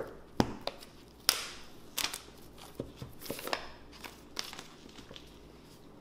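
Clear plastic shrink-wrap being torn and peeled off an iPhone box, crinkling in quick irregular crackles that die down in the last second or so.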